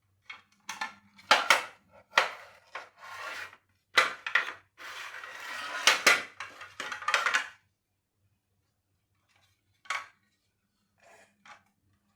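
Irregular metallic clinks and clatters: a string of sharp knocks and rattles, thick in the first seven or so seconds, then a lull broken by a single knock about ten seconds in. A faint steady hum runs underneath.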